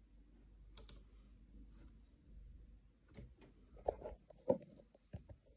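Faint, scattered light clicks and knocks: a single sharp click about a second in, then a quick cluster of them from about three to five seconds in.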